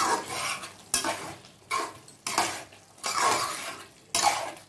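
Metal spoon scraping and stirring thick, wet meat masala in a metal kadai, in repeated strokes about once a second, each a scrape against the pan.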